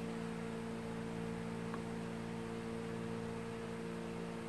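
Steady low hum made of several constant tones, with one faint click a little under two seconds in.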